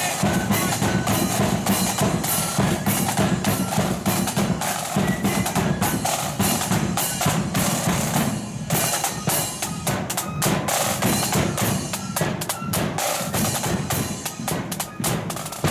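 Marching flute band playing on the move: rattling snare-drum rolls and strokes over a steady bass drum beat, with the flutes' melody above, and the drumming drops away briefly about eight seconds in.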